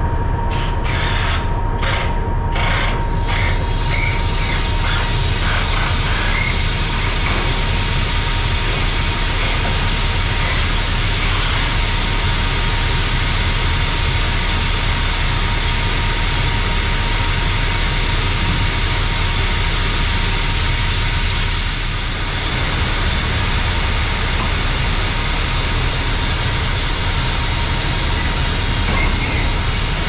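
Shelled corn pouring from a hopper-bottom trailer's opened gate through a steel grate into a receiving pit: a steady rushing hiss over a low machinery hum. A few sharp clicks in the first seconds as the hopper gate is cranked open.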